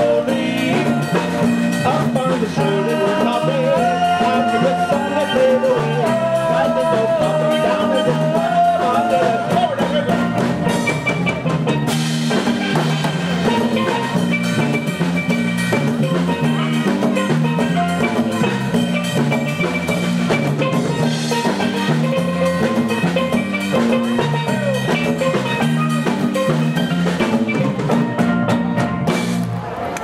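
Live steel band playing an instrumental passage: steel pans carry the melody in clear held notes over a steady beat from drum kit and hand percussion.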